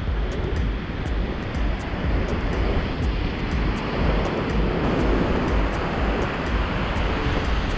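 Ocean surf washing on the beach, with wind buffeting the microphone in a heavy, gusting low rumble.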